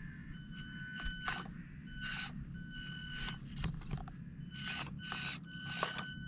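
Axial SCX24 micro RC crawler driving over rocks: a high electric motor whine that comes and goes with short throttle bursts, mixed with brief scraping bursts of the tyres and chassis on the rock.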